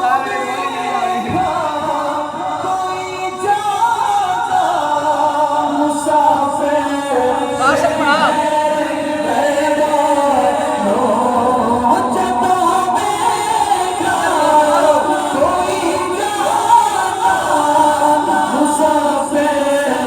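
Background music: a song with singing over it.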